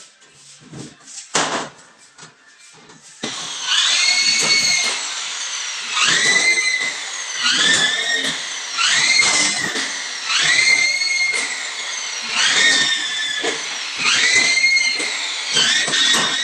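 A few knocks as the board is handled. Then, from about three seconds in, a corded electric drill starts and stops about seven times, every second and a half or so. Each run is a rising whine that levels off as the drill drives screws through fiber-cement board into metal studs.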